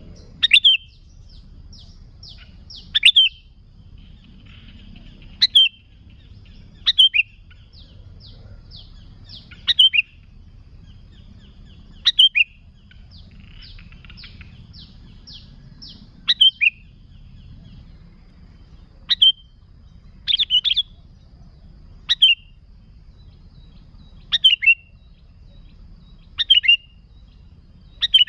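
Sooty-headed bulbul (kutilang) calling: short, loud call notes repeated every two to three seconds. Between them come faint series of quick chirps, over a low steady background rumble.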